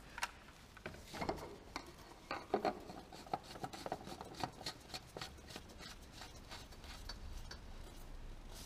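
Plastic cartridge oil-filter housing being screwed back onto the engine by a gloved hand: irregular small clicks and scraping rubs of the threads and glove, busier in the first half.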